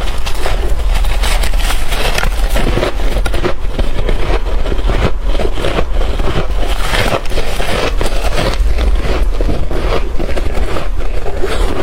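Freezer frost and shaved ice being chewed close to the microphone: a dense, continuous run of crisp crunches, with a steady low rumble underneath.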